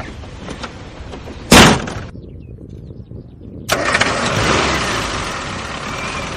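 A car engine starting and running: steady rumble, a very loud short burst about one and a half seconds in, then a sudden rise to a louder steady noise just past the middle.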